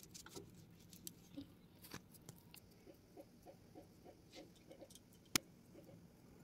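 Faint soft clicking of wet fingers pressing and pinching semolina dough shut around a sweet filling, with one sharper click about five seconds in.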